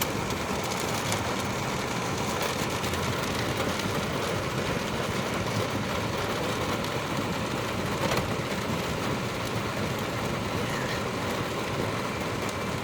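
Hailstorm with heavy rain: a dense, steady roar of countless small impacts pelting down, with one slightly louder hit about eight seconds in.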